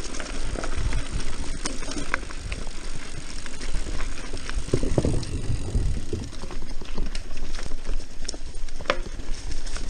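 Mountain bike being ridden along a dirt singletrack, heard from a camera on the rider: a steady noisy rumble of tyres on dirt and leaves, with many small knocks and rattles from the bike going over the ground.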